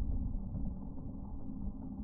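Low, continuous rumble of a Bobcat E10 mini excavator running a Geko stump grinder, slowed down so it sounds deep and dull.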